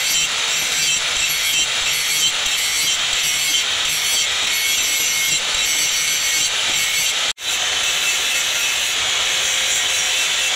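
Handheld angle grinder with an abrasive disc grinding a steel axe head, a loud steady high-pitched grinding rasp. It drops out for an instant about seven seconds in and carries straight on.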